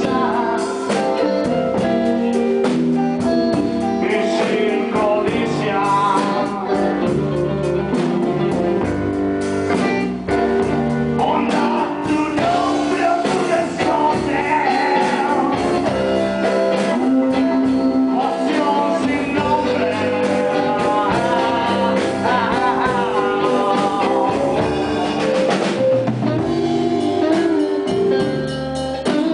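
A blues band playing live together: drum kit, electric guitar and keyboard, in a continuous full-band passage.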